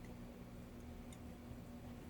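Quiet workshop room tone: a faint steady low hum with a few faint, scattered ticks.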